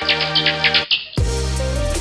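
Electronic background music with a steady beat; a little over a second in it switches to a fuller section with heavy bass.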